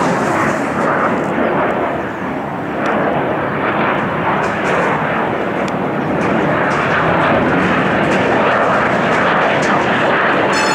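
Military fighter jet flying past, its jet engines making a loud, steady rushing noise that dips briefly about two seconds in.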